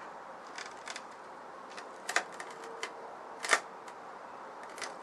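Wooden cabinet top being worked loose by hand: scattered sharp clicks and knocks of wood and fixings, the loudest about three and a half seconds in.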